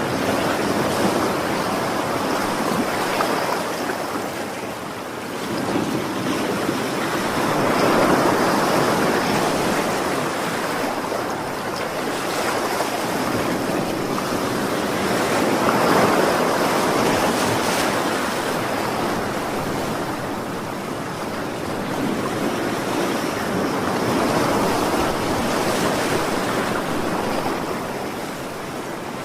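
Ocean surf: waves breaking and washing ashore in a continuous rush that swells louder and eases off in slow surges about every eight seconds.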